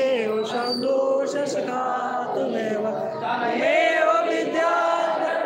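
Group of devotees singing an aarti together in long, held chanted lines.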